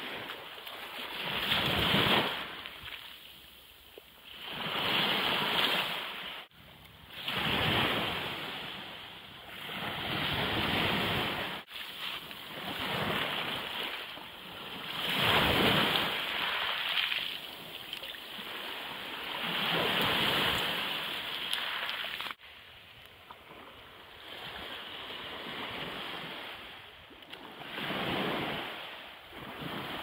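Small waves breaking and washing up a shingle-and-sand beach, swelling and fading every few seconds, with a few sudden breaks where the sound cuts.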